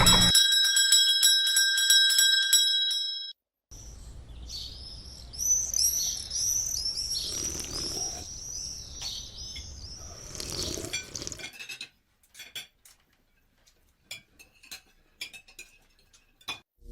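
A bell-like ring of several steady high tones that cuts off after about three seconds. Then a stretch of rapid high-pitched chirping over a hiss, and near the end scattered sharp clicks.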